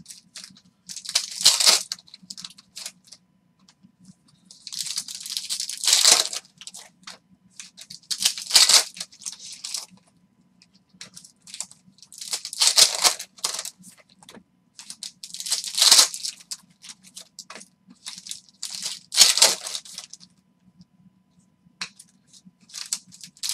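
Foil trading-card packs being torn open and crinkled by hand, in repeated crackly bursts about every three seconds, with small clicks of cards being handled between them.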